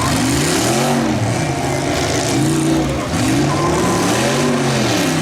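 Demolition derby car engines revving up and falling back repeatedly, four or five rises in pitch, over a steady noisy din.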